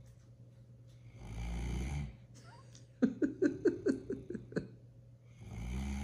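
Great Dane puppy snoring in deep sleep: a long rasping snore about a second in and another near the end. Between them comes a louder run of short pitched puffs, about six a second.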